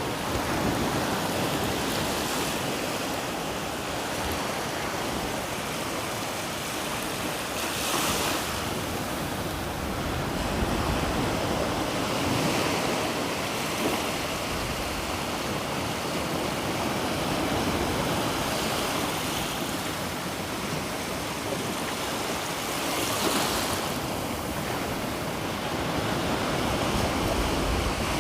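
Black Sea surf rolling onto the shore, a steady wash that swells louder every few seconds as waves break, mixed with wind.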